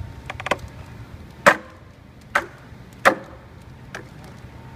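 Sharp knocks and taps, about six over a few seconds with the loudest about a second and a half in, as a piece of glass is handled and fitted back into place. A steady low hum runs underneath.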